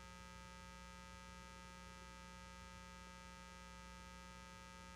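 Near silence with a faint, steady electrical mains hum that does not change.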